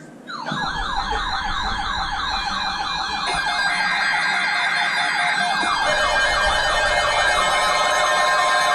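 Weather radio receivers sounding their alert alarms after a SAME alert header: rapid warbling siren tones, about ten sweeps a second, with more alarms joining partway through and a steady tone coming in near the end. The alert is a severe thunderstorm watch.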